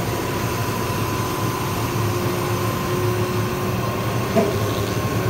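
Heavy construction machinery running steadily: a low diesel drone with steady high whining tones held over it.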